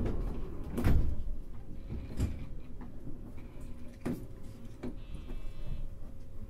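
Sliding passenger doors of a JR West 223 series train closing at the platform: a few dull thumps, the loudest about a second in, over a low rumble and a faint steady tone.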